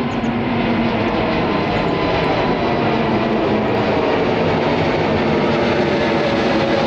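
Jet engines of an Airbus A320neo climbing overhead just after takeoff, a steady, loud rushing rumble.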